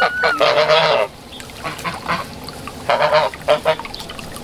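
Domestic geese honking, one longer harsh call near the start and a couple of shorter ones about three seconds in.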